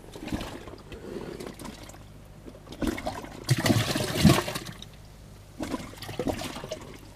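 Water splashing and sloshing in a bass boat's livewell as bass are grabbed and lifted out, in uneven bursts with the biggest splash about three and a half to four and a half seconds in.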